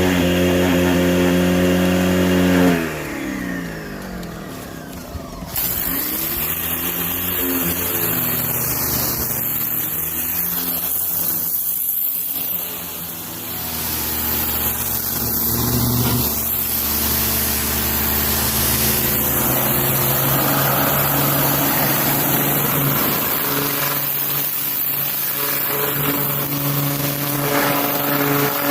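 Electric pressure washer running, its motor humming under the hiss of the water jet blasting grime off the underside of a steel mower deck. A few seconds in the motor winds down, then starts again suddenly with the spray.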